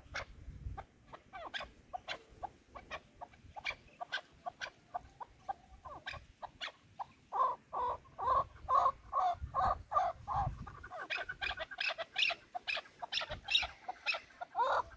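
Chukar partridges calling: a long series of short, repeated clucking calls, faint at first, then louder and quicker from about halfway through.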